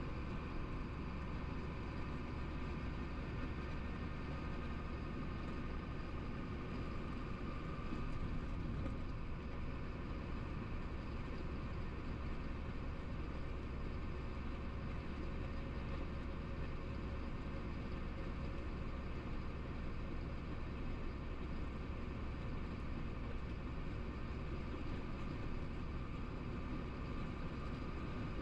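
Steady low drone of a Chenglong truck's engine and tyres, heard from inside the cab while cruising at highway speed.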